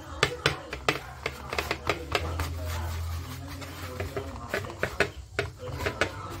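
Hands patting and pressing a sesame mixture flat on a metal tray, giving irregular sharp taps and slaps, several a second, with voices in the background.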